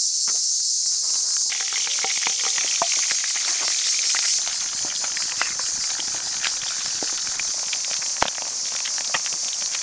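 Eggs frying in hot fat in a frying pan over a wood fire: a steady sizzle with scattered crackles and pops, growing fuller about a second and a half in.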